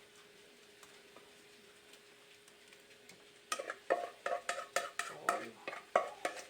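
A spoon scraping and clattering in a pan of homemade tomato and onion sauce, scooping it out in quick repeated strokes, about two a second, that begin about three and a half seconds in after a faint steady hum.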